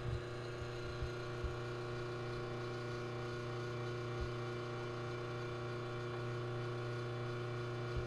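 Steady electrical mains hum with a stack of even overtones, broken only by a few faint ticks.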